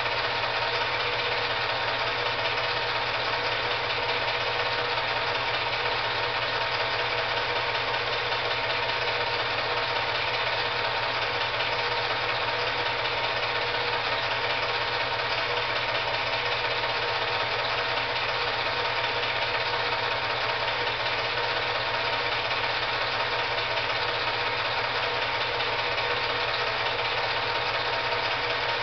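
Film projector running: a steady, unchanging mechanical whir with a fixed hum of several tones.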